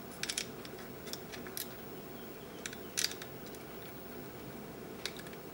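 Small metal mounting hardware being handled and threaded by hand onto a lead-acid battery's terminal post: a few scattered light clicks and taps over a faint steady hum.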